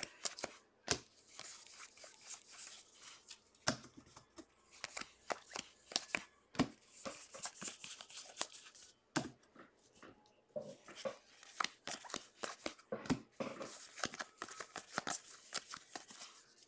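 A stack of trading cards flipped through by hand: faint, irregular clicks and rustles as each card slides off the one beneath.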